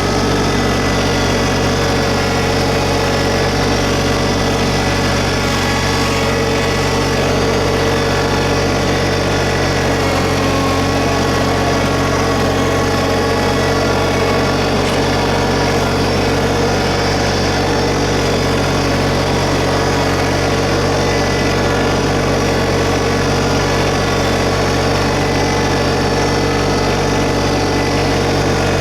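LS MT125 compact tractor's three-cylinder 1.3-litre diesel engine running steadily.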